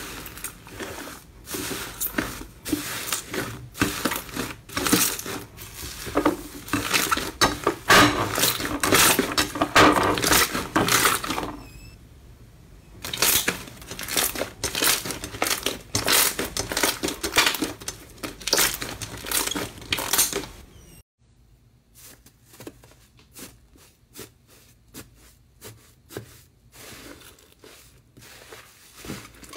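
Hands kneading and squeezing slime: rapid crackling, crinkling and popping, with foil flakes in the slime crinkling at first. A short lull about twelve seconds in, and from about two-thirds of the way through the sounds turn much quieter and sparser.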